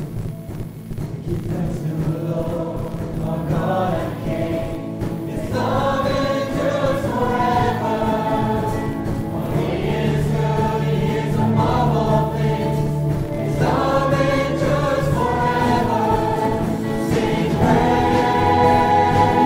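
Christian worship music: a choir singing over instrumental backing, the voices coming in about five seconds in.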